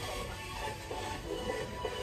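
Background music with short held notes.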